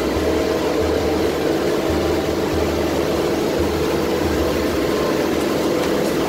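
The radial engines of a B-17 Flying Fortress running steadily with a low throb, heard from inside the fuselage as the bomber rolls along the runway.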